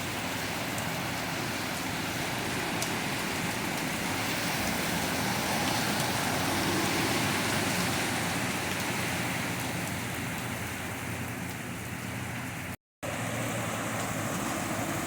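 Heavy rain falling while a car drives through floodwater on the street, its tyres swishing through the water; the noise swells to its loudest about halfway through and then fades as it passes. The sound cuts out for a moment near the end.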